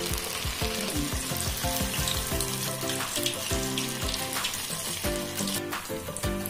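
Sabudana vadas deep-frying in hot oil, sizzling steadily, under background music with a steady beat.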